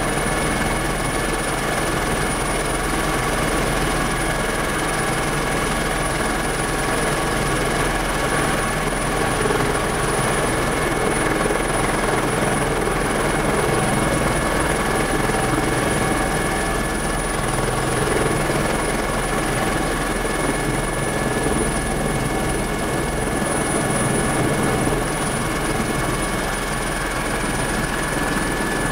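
Turbine helicopter engine and rotor running at high power, heard from inside the cockpit: a steady, loud wash of rotor and engine noise with a high turbine whine over it.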